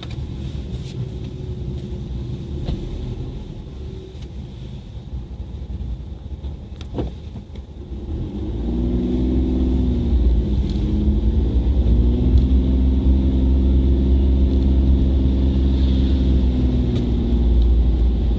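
Car engine and road noise heard inside the cabin. From about eight seconds in, the engine gets clearly louder with a steady drone, working harder as the car climbs a ramp.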